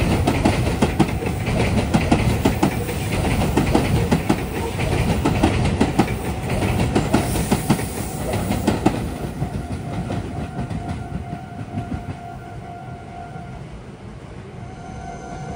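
Meitetsu 2000 series μSKY electric train, two sets coupled, rolling past with a rapid clickety-clack of wheels over rail joints and junction points, under a steady rumble. The sound fades about nine seconds in as the train draws away. A steady tone then comes in about ten seconds in and carries on, with a short break near the end.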